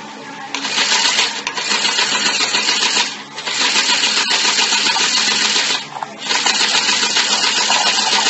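A children's battery-powered toy sewing machine running, a fast, buzzing mechanical rattle. It stops briefly twice, a little after 3 s in and again just before 6 s, then starts again.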